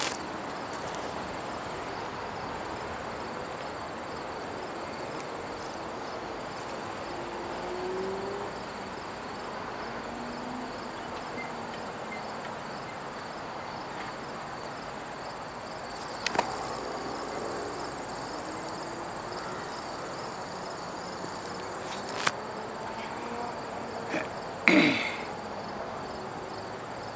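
Steady outdoor background noise with insects chirping in a faint, high, pulsing drone. A few sharp knocks cut through it, the loudest near the end.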